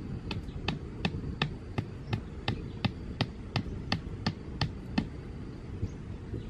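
A steady run of about fourteen sharp knocks at an even pace of roughly three a second, which stop about five seconds in.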